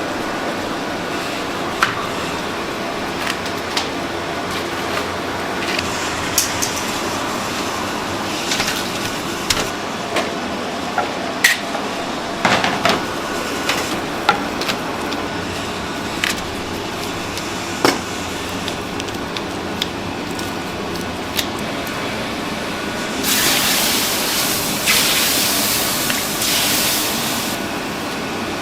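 Food-prep sounds: a steady background hum with scattered knocks and clinks of utensils or cookware, and a hiss lasting about four seconds near the end.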